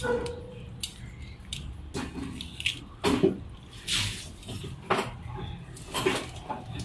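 Metal tongs working leafy vegetables down into a clay pot of boiling soup: irregular clicks and knocks of the tongs against the pot, with liquid splashing and dripping.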